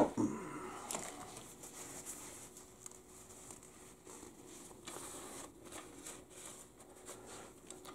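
Faint clicks, taps and light scraping of metal automatic-transmission parts being handled and shifted inside the open transaxle case, with one sharp click right at the start. A faint steady hum runs underneath.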